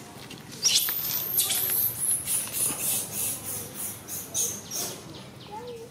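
Long-tailed macaque screaming: a sharp, rising, very high-pitched shriek about half a second in, then a run of shrill squeals, about three a second, for some four seconds.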